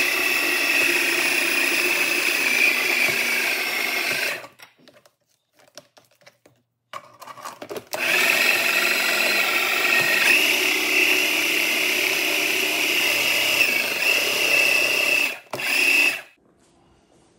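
Small countertop food processor motor running at a steady whine, puréeing raw chicken meat with cream and eggs into a smooth paste. It runs for about four seconds and stops, a few faint knocks follow in the pause, then a brief pulse, a longer run of about seven seconds, and one more short pulse near the end.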